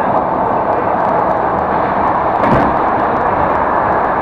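A suburban electric train running on its rails, heard from inside the carriage: a steady rumble and rush of wheels and running gear, with a brief louder thump about two and a half seconds in.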